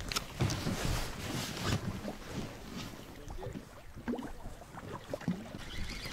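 Scattered knocks, taps and rustles of fishing gear being handled in an inflatable boat, over a low rumble.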